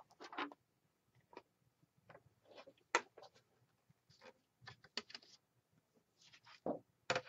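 Scattered light taps, clicks and paper rustles of cardstock and crafting tools being handled and set down, with a few sharper knocks, the strongest about three seconds in, about five seconds in and near the end.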